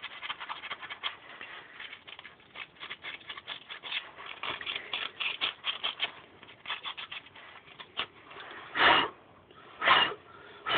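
Hand sanding with sandpaper on a part of an old air-conditioning compressor: quick, uneven rubbing strokes. Near the end come two short, louder whooshes.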